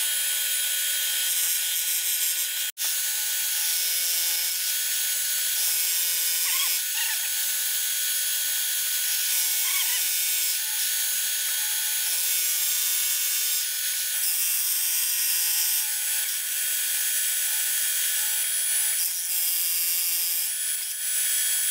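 Milling machine running, its end mill cutting the side profile of a newly machined camshaft bearing cap: a steady machining noise with constant whining tones, broken by a very brief dropout about three seconds in.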